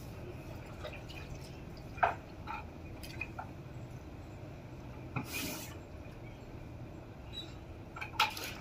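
Water dripping and small splashes echoing inside an open well, with a brief louder noise about five seconds in.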